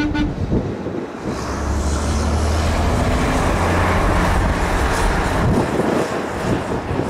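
RC-135 Rivet Joint's four turbofan jet engines on final approach, growing louder as the aircraft nears. A hiss rises from about a second in over a steady low hum.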